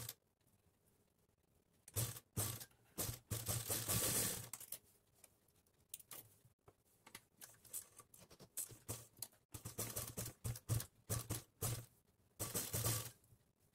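Sewing machine stitching in short stop-start runs, a rapid mechanical clatter, as lace is sewn along a blouse neckline.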